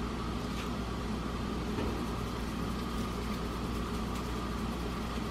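A steady low hum, with faint rapid ticking in the second half as pepper is dispensed over the vegetables in the slow cooker.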